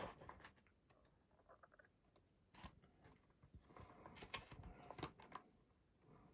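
Faint scattered clicks and light rustling of small electronic parts and wires being handled and fitted into a model wing, busiest in the middle.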